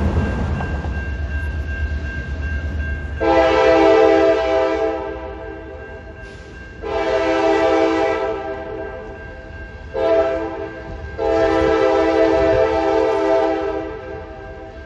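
CSX GP38-3 diesel locomotive's air horn sounding the grade-crossing signal as it approaches: two long blasts, a short one and a final long one, over the low rumble of the moving train.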